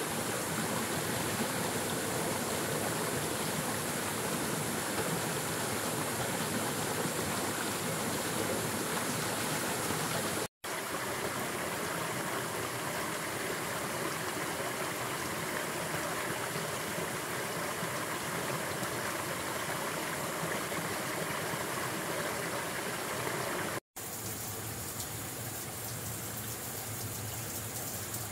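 Steady rushing noise of running water, even and unbroken except for two brief dropouts, one about a third of the way in and one near the end.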